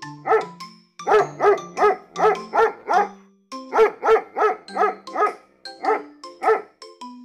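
A dog barking repeatedly in quick runs of several barks, about three a second, with short pauses between runs. Light background music of short plucked notes plays underneath.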